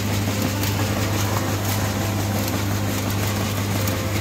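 Soybean-processing machine running steadily with a low, even hum, soybeans pouring and rattling from its metal chutes into plastic tubs.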